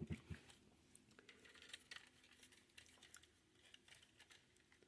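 Faint, scattered clicks and light taps of small plastic model-kit parts being handled and fitted together, with a couple of slightly louder clicks at the start.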